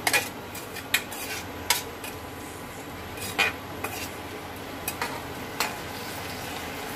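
Metal ladle stirring and scraping a thick sauce in an aluminium kadai, with about six sharp clinks of metal on metal at irregular intervals, roughly one a second, over a steady hiss.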